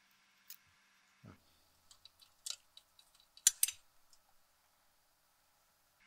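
Scattered small metallic clicks and ticks of a screwdriver and loosened screws handled against the metal chassis of a cassette deck's tape mechanism, with a soft low thump a little over a second in and the sharpest click about three and a half seconds in.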